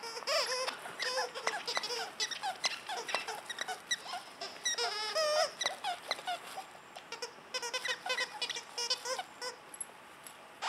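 Squeaker inside a plush dog toy squeaking over and over as a dog chews and shakes it: rapid, high, warbling squeaks in quick runs with brief pauses.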